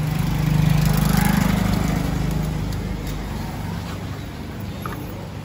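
Motor vehicle engine running with a low, even hum. It swells to its loudest about a second in, then fades steadily as the vehicle moves away.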